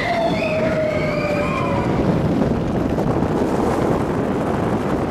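Roller coaster train running fast along its track: a steady, dense rumble of wheels on rail. Brief high gliding tones sound over it in the first two seconds.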